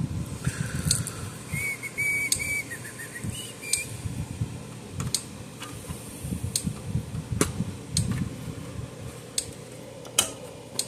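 A person whistling a few short notes about two seconds in, over scattered sharp clicks and knocks of parts and a plastic case being handled.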